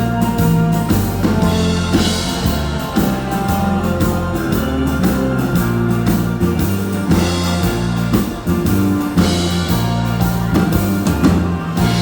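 Dance band playing an instrumental passage of a slow song: guitar over a steady bass line and drum kit, with no singing.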